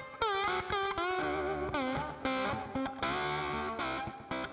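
Background music led by a distorted electric guitar, with notes that bend and slide in pitch.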